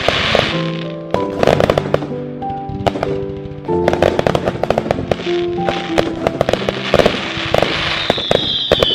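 Fireworks display: clusters of rapid crackling and popping from bursting shells, over background music. A falling whistle starts near the end.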